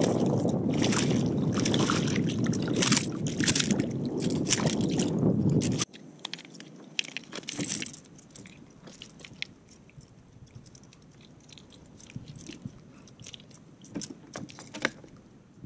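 A hooked trout splashing at the surface beside a kayak: loud water noise with many sharp clicks, cutting off abruptly about six seconds in. After that come faint scattered clicks and rustling as the trout is held in a fish grip and unhooked.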